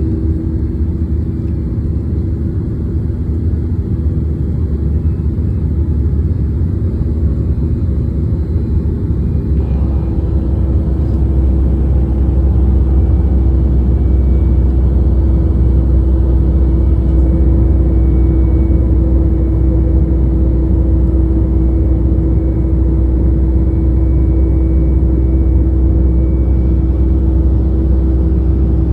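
Airliner engines running, heard as a steady low rumble inside the passenger cabin. The rumble grows louder about ten seconds in and then holds steady.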